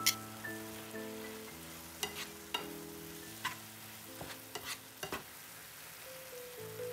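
Grated carrot, onion and tomato sizzling in a frying pan as a spatula stirs them, with a series of sharp taps and scrapes of the utensils against the pan. Soft background music plays underneath.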